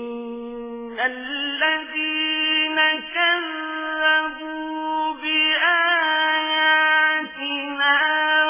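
A single voice reciting the Quran in a melodic, chanted style: long held notes with wavering ornamented turns, separated by short breaths between phrases.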